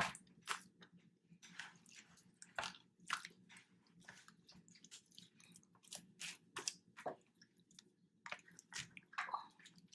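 Hands squeezing and kneading a large mass of mixed slime, giving a run of irregular soft, wet squelches and pops.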